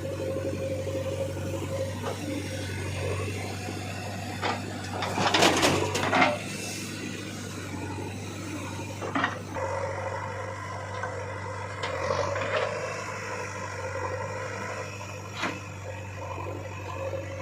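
Backhoe loader running steadily with a low hum, with scraping and knocking as the bucket works the mud. The loudest burst of scraping comes about five to six seconds in, and shorter knocks follow near nine, twelve and fifteen seconds.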